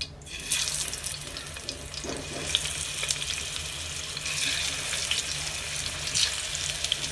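Marinated fish steaks sizzling in hot oil in a shallow frying pan, a steady hiss with scattered crackling pops. The sizzle grows louder a couple of seconds in as more steaks are laid into the oil.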